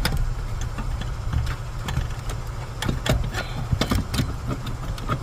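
Scattered sharp clicks and knocks of hand tools and metal parts being worked under a car's dashboard, over a steady low hum.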